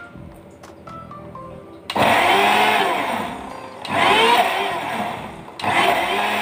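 Electric kitchen mixer grinder switched on about two seconds in and run in three surges, its motor pitch sweeping up and down as it grinds; a few light clinks come before it starts.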